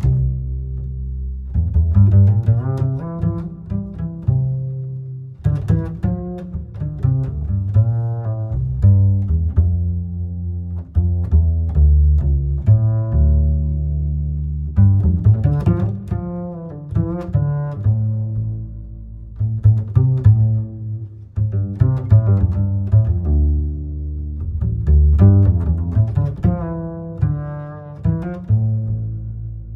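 Bass-heavy music played through a new amplifier and Storm Surge speakers on sound check, with deep sustained bass notes under a plucked melody. It fades down near the end.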